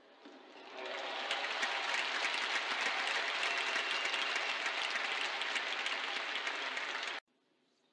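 Crowd applauding, swelling up about a second in and cutting off abruptly near the end.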